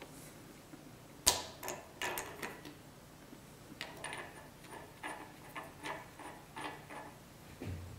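Metal clicks and taps of valve springs and spring caps handled on a vintage Bugatti Type 22 cylinder head: one sharp click about a second in, then a run of lighter clicks, and a dull knock near the end.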